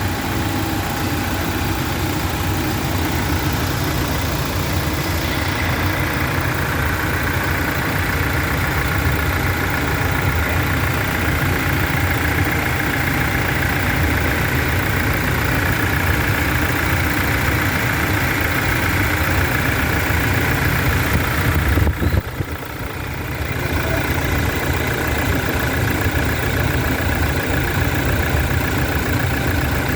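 Toyota 1GD 2.8-litre four-cylinder turbodiesel engine idling steadily, with a brief dip in level about two-thirds of the way through.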